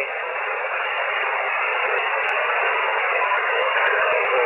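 Steady hiss and static from a shortwave amateur radio receiver in voice (single-sideband) mode, heard between transmissions, with the noise squeezed into the receiver's narrow voice passband.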